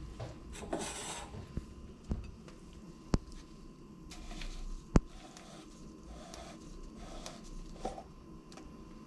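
Kitchen handling sounds: a wooden cutting board scraped on the counter, a few sharp knocks, then the yellow plastic screw lid of a tahini jar twisted open, with short squeaky rubs every second or so.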